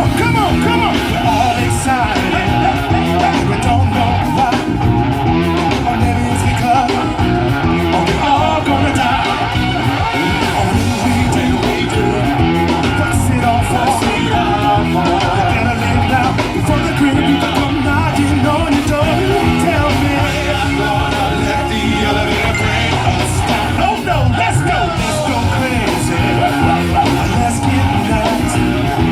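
Live band playing an old-school rock/funk song, with singing over guitar and a dense, steady beat.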